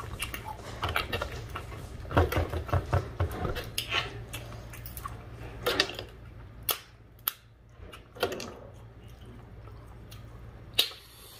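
Close-up mukbang eating sounds from a seafood boil: crab shells cracking and snapping, with wet smacking, in irregular sharp cracks and clicks. They come thick and fast in the first half and then sparser, with single sharp cracks near the end.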